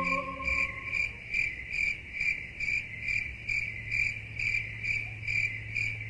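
Rhythmic insect-like chirping, an even pulse about two and a half times a second, over a faint low hum. The last held chord of ambient music fades out about a second in.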